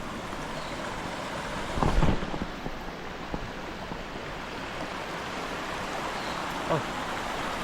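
Small mountain stream running with a steady rush of water, and a low bump on the microphone about two seconds in.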